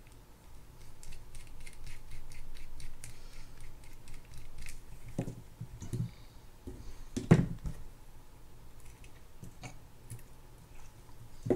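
Small clicks and scrapes of a mini screwdriver and small metal parts being worked out of a Daiwa RG1350 spinning reel and set down on the work mat, with a louder knock about seven seconds in.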